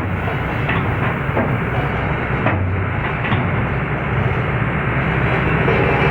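Excavator's diesel engine running steadily under load, with several sharp knocks as the machine works its way onto a truck.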